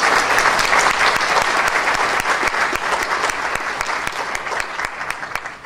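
Audience applauding: dense clapping from a large crowd that slowly weakens and stops near the end.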